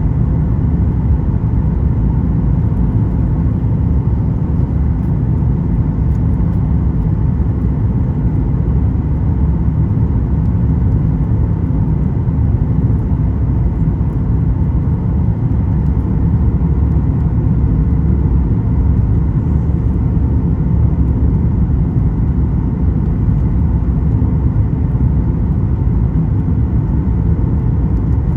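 Steady low cabin roar inside a Boeing 737 MAX 9, engine and airflow noise from its CFM LEAP-1B turbofans, with a faint steady hum above it.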